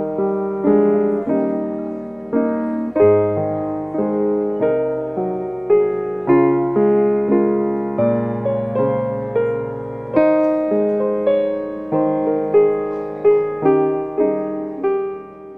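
Piano playing a slow hymn tune, chords struck about once or twice a second and each dying away, starting to fade out at the very end.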